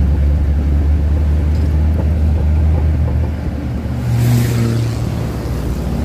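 Open-top jeep's engine running steadily as it drives along, with wind and road noise in the open cabin. About four seconds in the engine note climbs briefly and a short burst of hiss passes, then settles.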